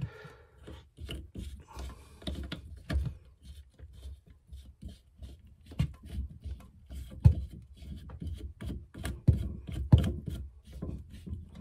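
A toilet supply line's plastic coupling nut being hand-threaded onto the fill valve shank: irregular clicks, knocks and plastic rubbing, with a sharper knock about seven seconds in.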